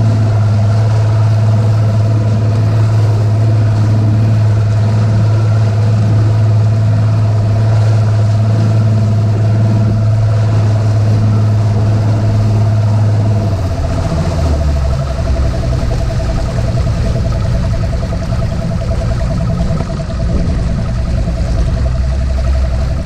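Bass boat's outboard motor running with the boat under way, a loud steady low drone with a thin steady whine above it. About halfway through the engine note drops lower and turns rougher.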